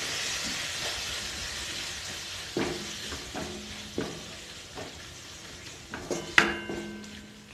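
Chopped tomato sizzling in oil and spice paste in a metal kadai while a wooden spatula stirs it. The sizzle slowly dies down, and the spatula scrapes and knocks against the pan a few times, loudest near the end.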